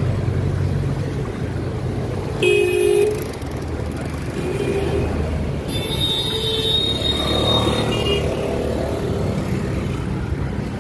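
Road traffic noise from a city street, heard from a moving bicycle. A vehicle horn sounds briefly about two and a half seconds in, and another horn-like tone comes around six seconds in.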